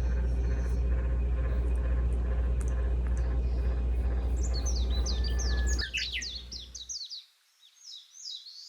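A steady low rumble that dies away about six seconds in, with a bird twittering over it in a quick string of short, high, falling chirps from about four seconds in.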